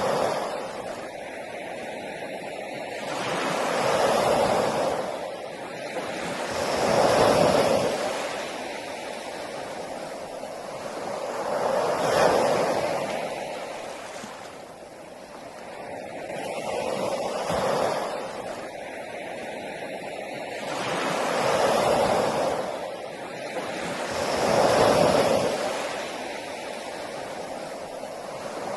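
Sea waves breaking on a beach, the surf swelling and washing away again every three to five seconds.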